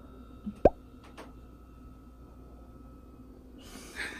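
A single quick rising plop, a short upward bloop, about two-thirds of a second in, with a faint click soon after.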